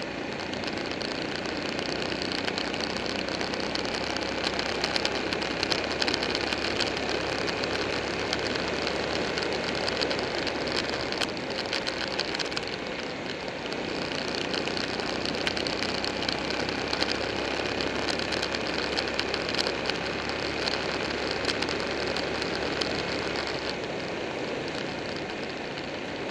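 Buell 1125R sport bike's 1125 cc V-twin engine running under way, mixed with heavy wind rush on the microphone. The engine note shifts about halfway through and again near the end.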